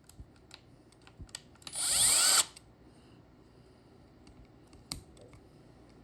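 Power drill run in one short burst of under a second, its whine rising as it spins up, with a small bit drilling beside the roll pin in a Datsun 280ZX ignition lock cylinder. Light clicks and taps from handling the drill and cylinder come before and after it, with one sharper click near the end.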